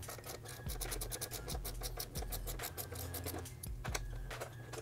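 Hand ratchet with a 10 mm socket clicking in quick runs of ticks as it turns out a fuel-tank mounting bolt; the clicks are thick in the first half and sparser later.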